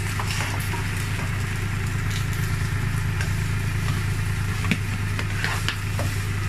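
Onions, mushrooms and garlic sizzling in oil in a nonstick frying pan as a plastic spatula stirs them, with a few light taps of the spatula on the pan. A steady low hum runs underneath and is the loudest sound.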